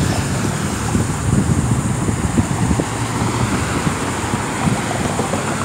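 Wind buffeting the microphone in a steady low rumble, with cars driving past on the street.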